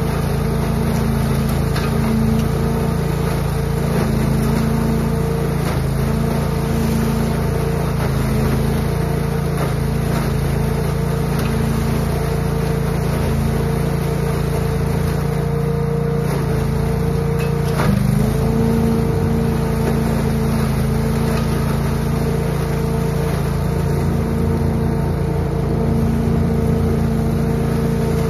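Billy Goat trailer-mounted leaf vacuum running steadily under load, its engine and fan giving a constant drone as it sucks leaves up the wide intake hose. About two-thirds of the way in the pitch dips briefly and recovers.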